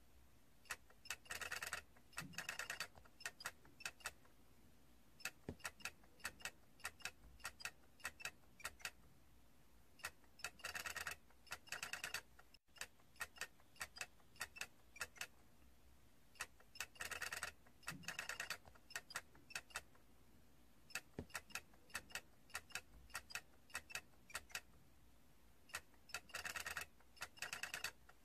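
Small plastic figure toy clicking and ticking irregularly, with short runs of rapid rattling clicks every several seconds, several of them in pairs.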